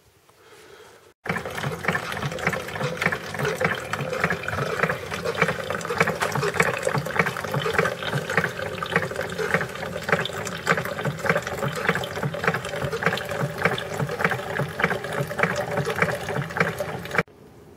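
Single-serve coffee maker brewing: hot water pumping through and coffee spurting into the cup with rapid spluttering. The sound starts suddenly about a second in and cuts off just before the end.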